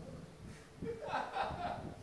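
Faint, brief chuckling about a second in.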